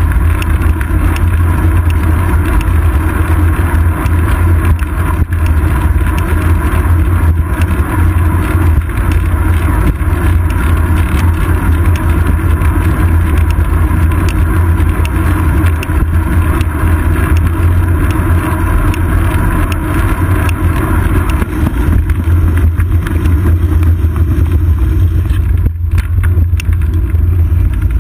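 Steady, loud low rumble of wind and road vibration picked up by a seat-post-mounted GoPro Hero 2 on a moving bicycle.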